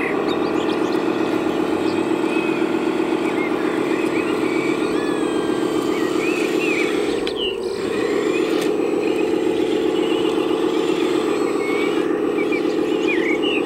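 Electric drive of a 1/14-scale RC model machine running with a steady whine, dipping briefly about halfway through.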